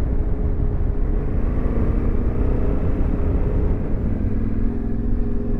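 Yamaha Ténéré 700 parallel-twin motorcycle engine running under way, with a steady low rumble of wind and road. The engine note drops about four seconds in as the bike slows or shifts.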